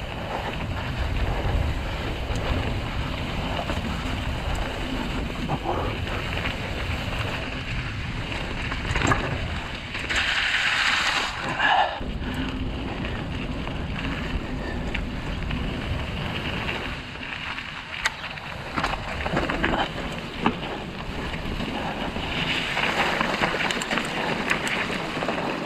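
Wind buffeting the microphone on a mountain bike descending a dirt trail, over the rolling noise of the Mongoose Ledge X1's knobby tyres and scattered rattles and clicks from the bike. A louder hiss comes about ten seconds in and lasts a second or two.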